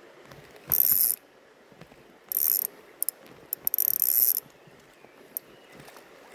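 Spinning reel cranked in three short bursts, its gears giving a fast ratcheting whir, with a few single clicks between the bursts, over the steady rush of a stream.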